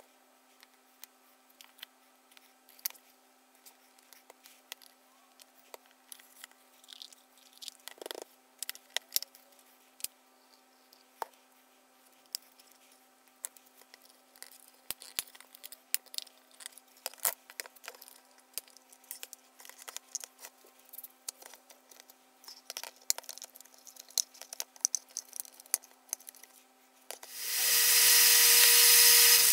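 Scattered small clicks and taps of hands working a glued wooden box and quick-release bar clamps, then about 27 seconds in a Central Machinery benchtop belt and disc sander switches on, its motor spinning up within a second and running steadily and much louder.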